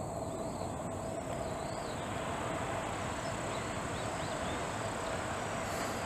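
Outdoor ambience: a steady insect drone with faint wavering chirps over a low, even rumbling haze.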